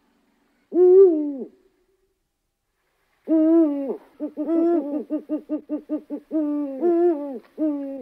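Eurasian eagle-owl calling: one low hoot about a second in that rises slightly and then falls away, then from about three seconds in a run of longer hoots mixed with quick short hoots at about three to four a second.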